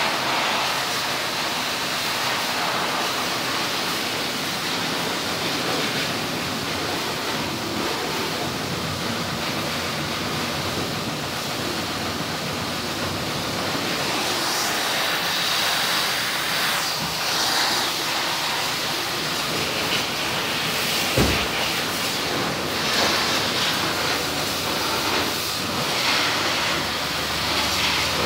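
High-pressure water spray from a washer wand, a steady hiss as the jet hits a motorcycle, with one short low thump about three-quarters of the way through.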